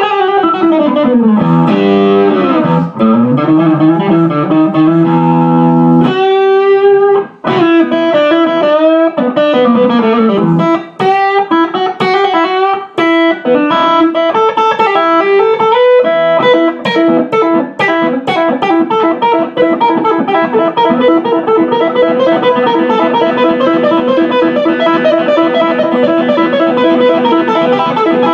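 Electric guitar played through a 1969 Plush P-1000S 100-watt all-tube amplifier, driven into overdrive. It plays sustained lead lines with string bends and vibrato, a fast lick about six seconds in, and quickly repeated picked notes later on.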